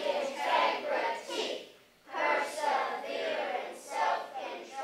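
A group of children's voices chanting together in unison, in two phrases with a short break about two seconds in.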